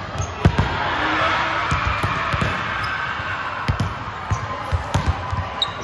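A basketball bouncing on a hard court floor in irregular thuds, over a steady background hubbub.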